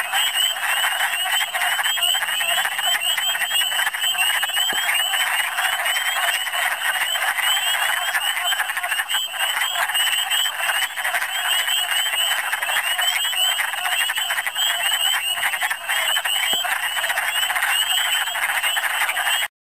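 Spring breeding chorus of many male wood frogs calling at once, a dense steady mass of short clucking calls. It cuts off abruptly near the end.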